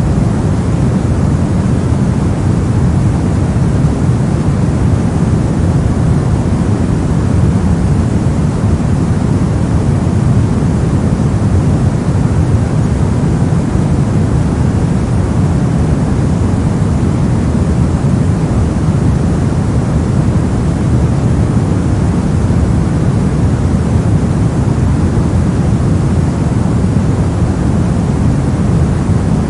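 Steady soft noise, a deep even rushing hiss with most of its weight in the low end and the highs rolled off, unchanging throughout.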